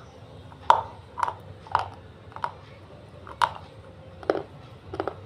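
A dry, brittle piece of white edible clay being chewed close to the microphone: about seven sharp crunches roughly every half second to second, the loudest about a second in and again in the middle.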